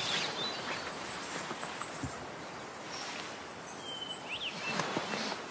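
Outdoor woodland ambience: a steady background hiss with a few faint, short bird chirps, the clearest about four seconds in, and light rustling near the start and near the end.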